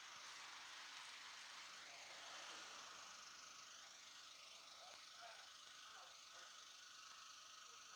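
Near silence: faint steady outdoor background hiss.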